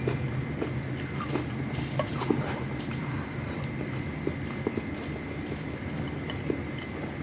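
A person chewing and biting food close to the microphone, with irregular short clicks and smacks, over a steady low hum.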